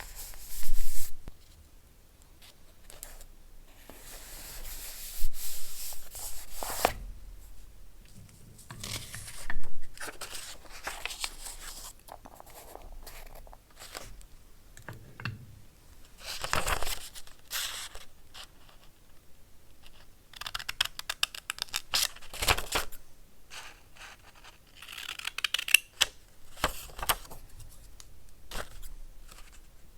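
Paper being handled and torn in a series of separate bursts: ripping, rustling and scraping of paper pieces, with rapid crackling strokes during the tears.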